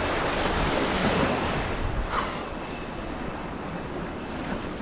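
Steady wind rumble on the microphone over a wash of sea water noise.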